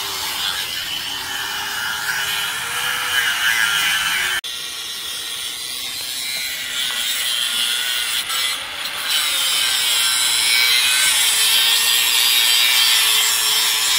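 Angle grinder with a cutting wheel cutting through the rusty steel tubing of a brush guard: a steady hiss of wheel on metal over the motor's whine, which wavers in pitch as the wheel loads and frees up. The sound breaks off abruptly a little over four seconds in, then the grinding carries on.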